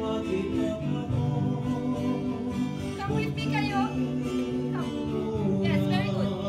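A song with plucked guitar and singing, steady throughout, with sliding vocal phrases about halfway through and again near the end.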